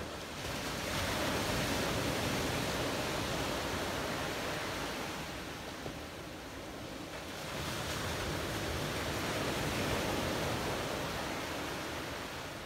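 Ocean waves washing in a steady rush that swells twice and eases off between.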